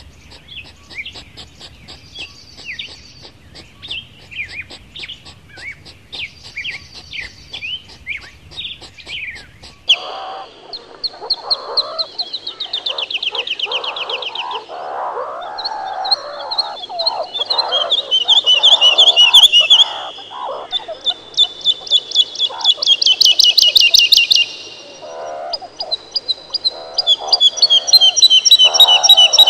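Quick high chirps for the first ten seconds, then a group of meerkats calling: several rapid, high trills at once over lower chattering, coming in loud runs.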